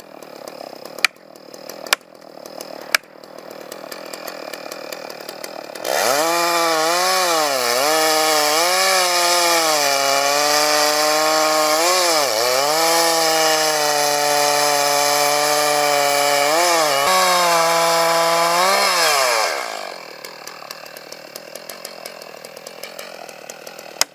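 A few sharp knocks about a second apart, then a chainsaw revs up about six seconds in and runs at full throttle for around thirteen seconds. Its pitch dips briefly several times under load in the cut, and it drops back down near the end.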